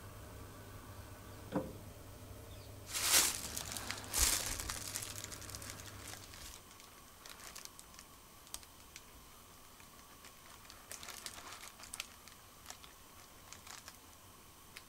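Thin plastic bag wrapped around a firework shell crinkling as it is handled, with two louder rustles about three and four seconds in, then scattered light crackles.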